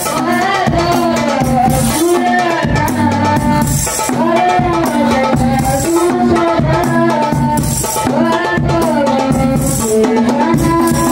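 Hadrah banjari: several men singing sholawat together through microphones with a melismatic, sliding melody, over a busy interlocking rhythm of hand-struck frame drums and a bass drum.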